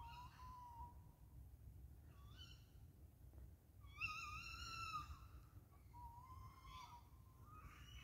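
A series of drawn-out, wavering animal calls, each lasting up to about a second, the loudest about four seconds in, over a low steady rumble. The uploader takes them for birds calling in their mating season.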